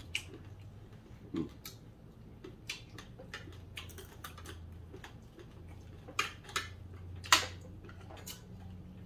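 Metal forks and spoons clicking and scraping on ceramic plates as two people eat, in scattered, irregular taps. A low steady hum runs underneath.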